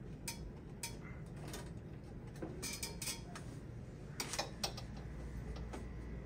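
Scattered light metallic clicks and clacks, some in quick little clusters, as a stiff old metal spring clip is worked off a pipe connection at the boiler's heat exchanger.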